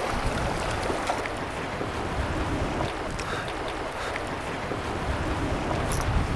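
Wind buffeting the microphone over water sloshing around a small fishing boat, a steady rushing noise, with a couple of faint short high ticks near the end.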